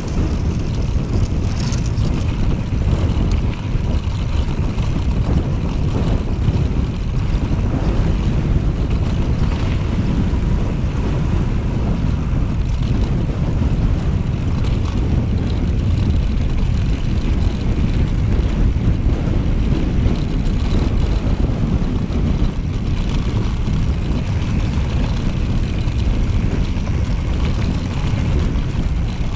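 Loud, steady wind buffeting the microphone of a camera on a moving mountain bike, a dense low rumble with no break.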